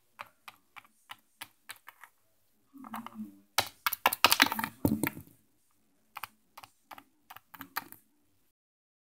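Light clicks and taps from handling: small plastic toy figures knocking on a hard wooden floor and the camera being touched. The clicks come about five a second at first, bunch into a louder flurry in the middle, then thin out and stop.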